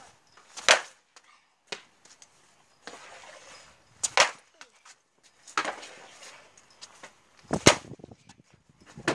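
Three hockey shots, about three and a half seconds apart: each is a sharp crack of the stick striking the shot, the later two led in by a second or so of the stick scraping over gravel. A fainter knock follows the first about a second later.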